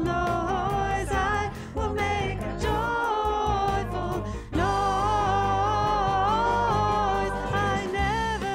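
Music: a woman's lead voice with a backing choir of women's voices singing over piano and bass, with one long held sung note through the second half.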